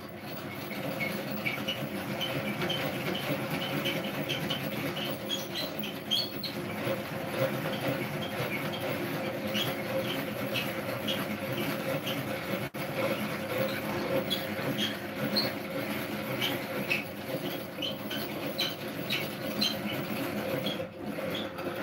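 Hand-cranked rotary egg beater whisking pancake batter in a plastic bowl: a continuous rattle of turning gears and beaters, with short high squeaks from the gears. It starts suddenly.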